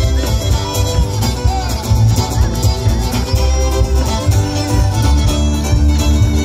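Live Irish traditional tune led by fiddle with strummed guitar and a strong bass beat, amplified through the stage speakers.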